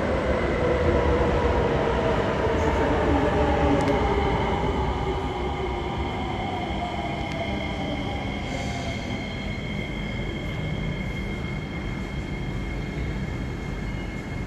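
Metro train's electric traction motors whining, several tones falling steadily in pitch as the train slows, then a steady high whine holds, with a short hiss about eight seconds in.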